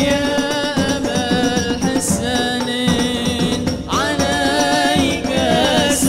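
A male voice sings a devotional song through a microphone and PA, with slow vibrato on held notes, over a steady rhythm of hand-played frame drums and large barrel drums.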